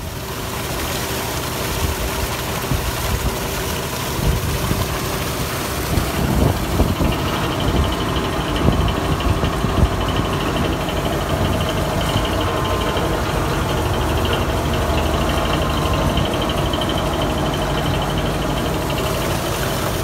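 Field-tile drainage pump running: a belt-driven electric motor runs steadily while water gushes out of a PVC discharge pipe and splashes into the ditch. This is the float-switched pump emptying the collection pit that the field tile drains into.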